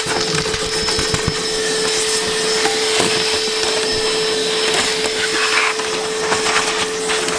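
Shop vac running steadily, its hose sucking dirt off a truck's floor carpet: an even rushing noise with a steady mid-pitched hum.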